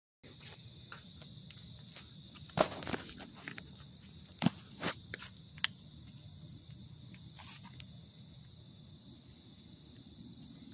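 Faint scattered footsteps and handling knocks, a few sharper ones near the middle, over a steady high-pitched tone.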